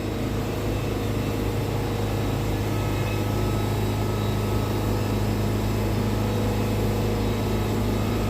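Wood-Mizer band sawmill running steadily, its engine a constant low drone with no change in pitch, while the band blade saws through red cedar.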